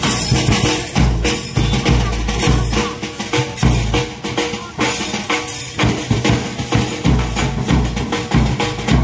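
Live percussion for a street dance: a large double-headed drum beaten in a steady rhythm of deep thumps, with bright metallic jangling strikes over it.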